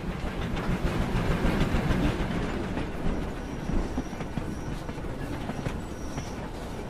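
Railway carriage on the move, heard from inside: a steady rumble of the running train, with a faint high whine that comes and goes from about halfway through.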